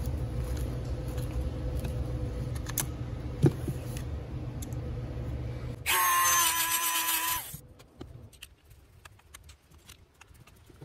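A handheld rotary grinding tool running with a steady hum as it grinds the staked ends of a Rochester Quadrajet's throttle-blade screws. About six seconds in it turns louder and higher-pitched for a second and a half, then stops. Small metallic clicks of a screwdriver working the screws follow.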